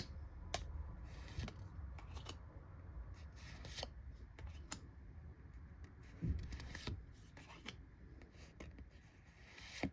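Pokémon trading cards being handled and slid across one another as a pack is flipped through. Faint light taps and short swishes come irregularly, with one louder knock a little past six seconds in.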